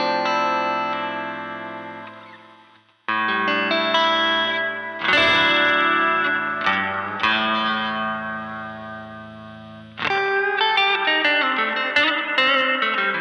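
Clean electric guitar chords played through an Empress Reverb pedal on its Lo-Fi setting: a grainy, filtered reverb with an AM-radio quality. A chord rings and fades, new strums come about three and five seconds in and are left to sustain, then busier strumming and picking starts about ten seconds in.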